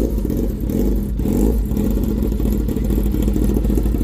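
Kawasaki ZX-10R's inline-four engine running steadily at idle, seconds after a cold start.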